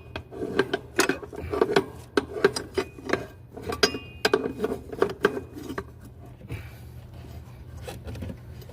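Metal hand tools clinking and knocking against the EGR tube fittings and bracket of a Ford 5.4L engine, a run of irregular metallic clinks with brief ringing, easing off about six seconds in.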